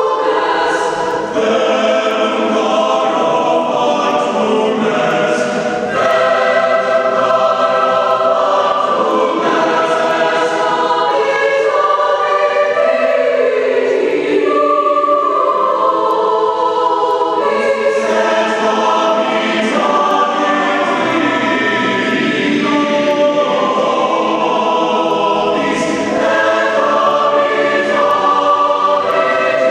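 Mixed high school choir of girls' and boys' voices singing in parts, holding sustained chords that move together.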